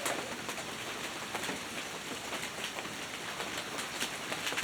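Heavy downpour of rain falling steadily, with many separate drops striking close by.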